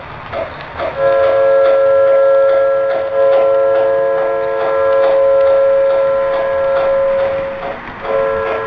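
O scale model steam locomotive's onboard sound system blowing a multi-chime steam whistle: one long chord-like blast lasting about seven seconds, cut off and sounded again near the end. Underneath runs a steady ticking of about three a second as the train rolls.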